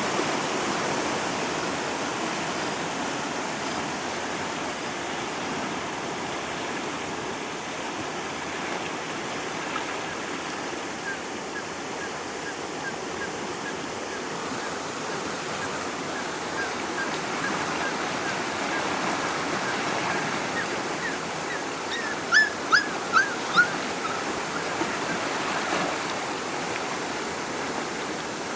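Rushing floodwater with puppies crying. Faint high whimpers repeat from about a third of the way in, then four loud yelps come close together near the end.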